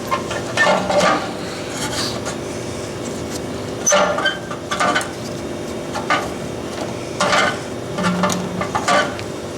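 Light metal clinks and scrapes at irregular intervals, about a dozen in all, over a steady low hum.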